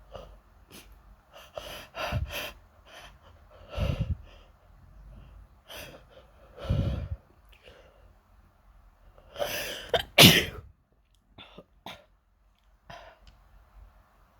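A person sneezing several times in a row, with short sniffs and intakes of breath between the sneezes; the loudest sneezes come close together about ten seconds in.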